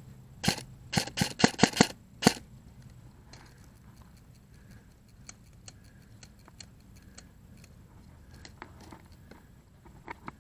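Airsoft gun fired in a quick string of about seven sharp cracks within the first two and a half seconds, followed by faint scattered ticks.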